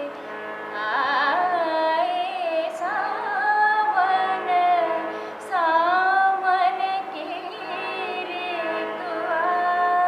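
A woman singing a kajri, the Uttar Pradesh monsoon folk song, solo, in long held notes that bend and waver.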